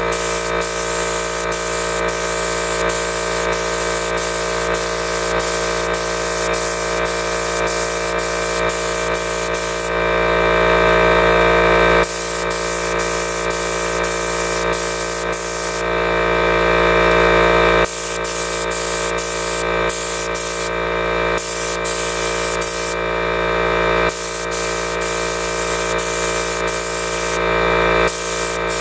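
Electric paint spray gun spraying: a steady hiss of atomising paint over the constant whine of its motor. The hiss breaks off for a second or two several times as the trigger is let go, while the motor runs on.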